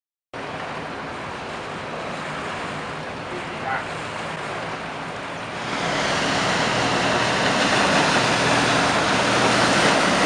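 Canal passenger boat speeding past, its engine running and its wake washing through the canal, heard as a steady rush that grows louder a little past halfway through.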